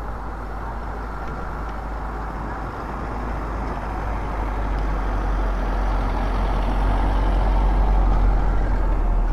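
Town-street ambience with a motor vehicle approaching close by: a deep engine rumble and tyre noise that grow steadily louder, peaking near the end.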